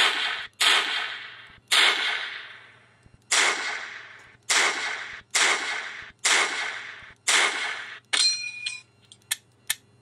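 M1 Garand rifle sound effect played by the blaster prop's Arduino MP3 module through a small speaker: eight shots, roughly a second apart, each with a decaying tail. The eighth shot is followed by a short metallic ping, the Garand's en-bloc clip ejecting, and then a few light clicks near the end.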